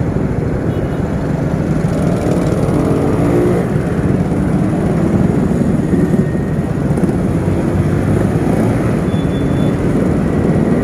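Motorcycle riding on the road: steady engine and road noise, with heavy wind on the microphone.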